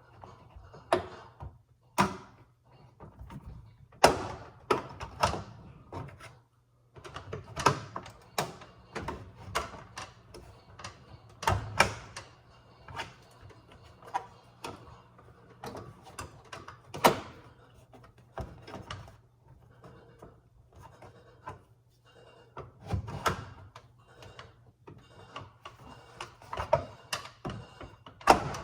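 Scraper prying at the plastic trim and handle of a GE Profile microwave door: irregular sharp plastic clicks and knocks as the tool works in and the clips pop.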